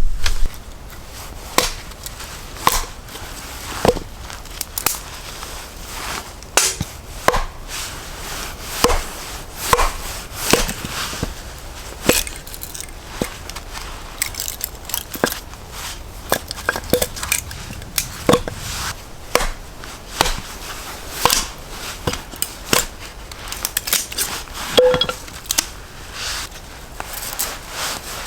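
Irregular sharp wooden knocks and cracks, about one a second, some with a brief ring: small firewood being chopped or split.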